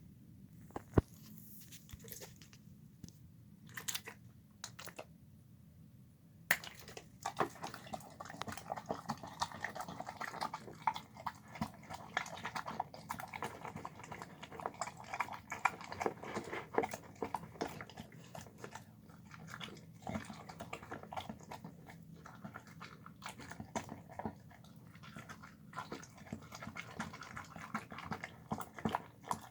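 A dog chewing and crunching its food: a few separate bites over the first six seconds, then steady, busy chewing from about six and a half seconds in.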